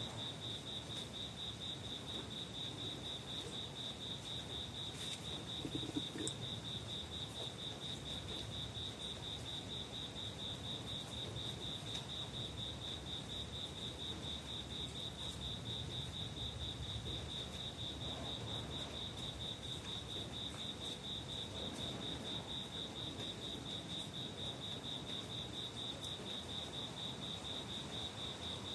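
A cricket trilling steadily: one unbroken, high, rapidly pulsing chirr that holds the same pitch throughout, over a low background rumble.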